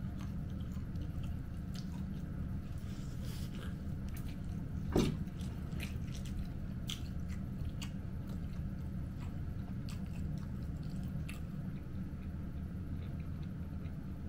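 Close-miked chewing and wet mouth sounds of someone eating, with scattered soft clicks over a steady low hum. One sharper, louder sound comes about five seconds in.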